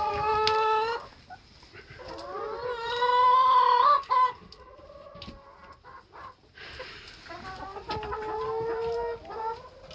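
Hens inside the coop making drawn-out calls and clucks, the loudest a long rising call about three seconds in, with a few light knocks between the calls.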